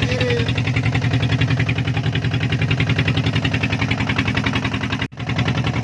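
Boat engine running steadily with a fast, even throb, broken by a sudden brief dropout about five seconds in.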